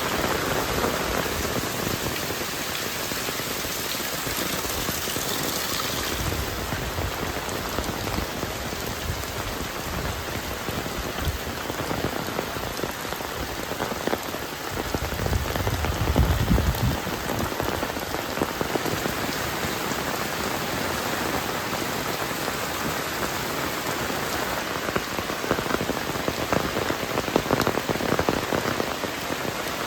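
Heavy rain falling steadily, an even hiss of drops, with a brief low rumble about halfway through.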